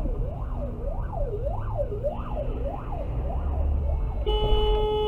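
Fire engine siren wailing, its pitch rising and falling quickly, about once every half second or so, over low engine and road rumble. About four seconds in the wail stops and a long, steady vehicle horn blast begins.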